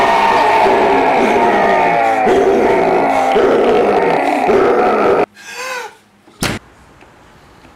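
A loud, dense clamour of overlapping voices and music cuts off abruptly about five seconds in. A brief voice sound that rises and falls in pitch follows, then a single sharp bang.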